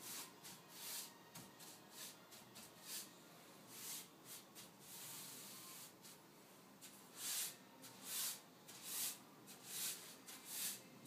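Faint swishes of a paintbrush's bristles drawn across the slats of a louvred door, laying off wet paint. The strokes are irregular at first, then come more evenly, a little over one a second, in the second half.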